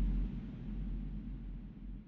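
The tail of an explosion sound effect: a deep rumble dying away, its higher hiss fading out first.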